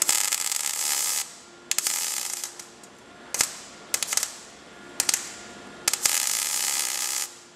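MIG welder arc crackling on thin steel body panel in six short bursts of stitch welding, the first and last just over a second long and the ones between shorter.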